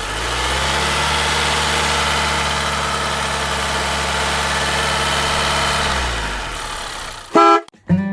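Volkswagen Beetle 1.8 engine idling steadily, fading out about six seconds in. Near the end, a brief loud tone.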